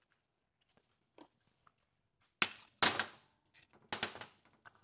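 Metal tool clicking and knocking against the aluminium case of a 4R70W automatic transmission while the low reverse servo is pried out of its bore: a few light clicks, then three sharper knocks in the second half.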